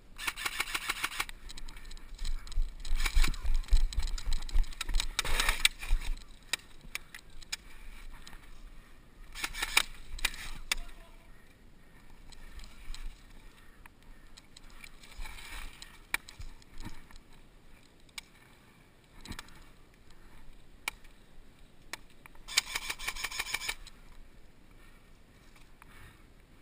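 An airsoft gun fired in several rapid bursts of clicking shots, with quieter handling and movement noise between the bursts.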